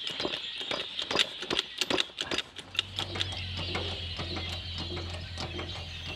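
Irregular sharp metal clicks and taps of a hand tool working at a rusted-in Land Rover Series 1 steering relay, several a second, thinning out after the first half. A steady low hum begins abruptly about three seconds in.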